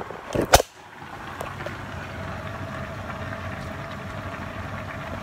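A few handling knocks as the phone is moved, then a cooker hood's extractor fan running steadily with a faint hum.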